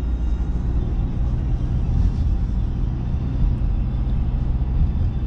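Steady engine and tyre rumble heard from inside a moving car's cabin.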